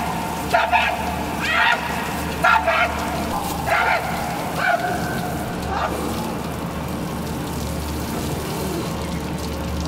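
Water pouring down in a steady stream onto a worker's hard hat and overalls and splashing around him. Over it come several short voiced cries in the first six seconds, which then stop.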